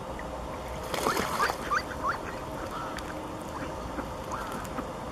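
Mallards calling: a quick run of several loud, short calls about a second in, then fainter calls scattered after.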